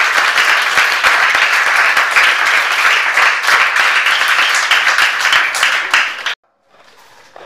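A classroom of schoolchildren clapping and applauding together, a loud dense patter of many hands, which cuts off suddenly about six seconds in.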